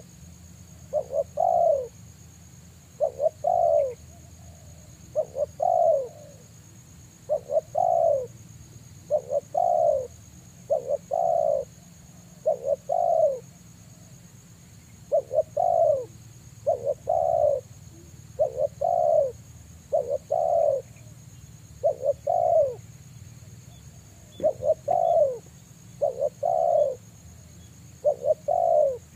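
Spotted dove cooing: its song phrase repeated about every two seconds, one or two short notes and then a longer falling coo, with brief pauses a little before the middle and again later on.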